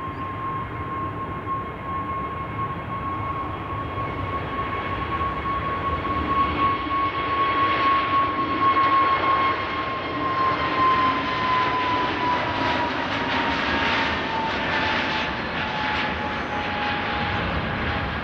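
Jet aircraft engines going past: a high whine over a broad engine noise that grows louder until about nine seconds in, then drops slowly in pitch as the aircraft passes.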